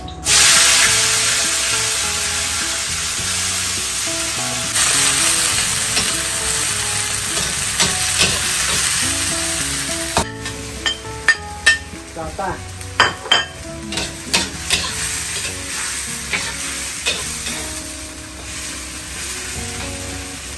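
Chopped garlic chives dropped into hot oil in a wok, with a sudden loud sizzle that carries on steadily for about ten seconds. After that the sizzle eases while a metal spatula clicks and scrapes against the wok as the chives are stir-fried.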